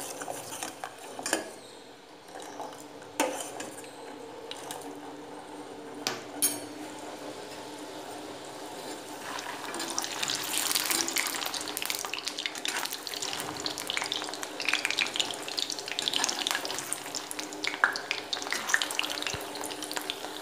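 A spoon stirring sugar syrup at the boil in a metal pan, knocking against the pan several times. About ten seconds in, bread gulab jamun balls deep-frying in hot oil in a kadai take over: a steady sizzle with crackles, with the steel slotted spatula among them.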